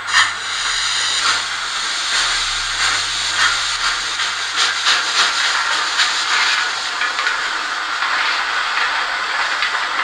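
Digital sound decoder in a PIKO N-scale BR 82 model steam locomotive, playing a steady steam hiss through its small loudspeaker as the model starts to roll.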